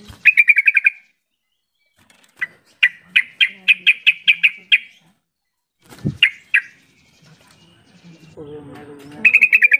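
Yellow-vented bulbul chattering in four quick bursts of sharp, rapid notes, the longest lasting about two seconds. A thump comes about six seconds in.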